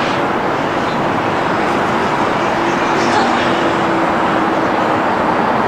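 Steady city traffic noise, an even hum of road vehicles, with a faint held tone for a couple of seconds near the middle.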